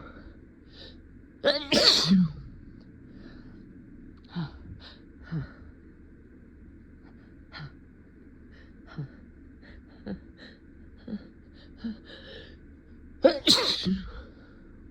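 A person sneezing despite trying to hold it back: a loud burst of sneezing about one and a half seconds in and another near the end, with short quieter sounds in between.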